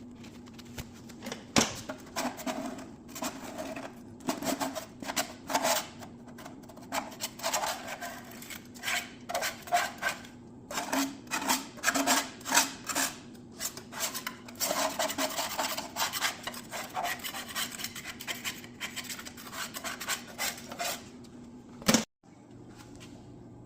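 Hand tools scraping and rubbing on engine parts in short, irregular strokes, over a steady low hum.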